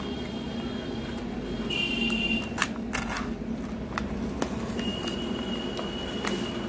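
Utility knife cutting and tearing open a paper courier bag: rustling and crackling of the paper with a few sharp clicks, over a steady low background hum. A thin high steady tone sounds briefly about two seconds in and again from about five seconds.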